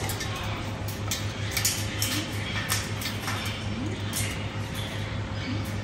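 Galahs (pink cockatoos) in a cage making scattered light clicks and taps, with a few faint short squeaks, over a steady low hum.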